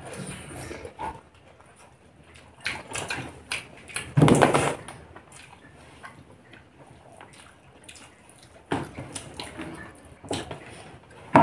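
Eating sounds close to the microphone: chewing and mouth noises as rice, meat curry and papad are eaten by hand. They come in short, scattered bits, the loudest about four seconds in.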